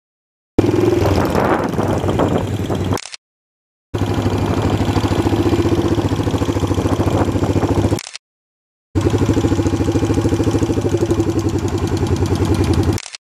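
Yamaha SR single-cylinder four-stroke motorcycle engine running at low speed with a steady thumping pulse, in three stretches broken by two short silences.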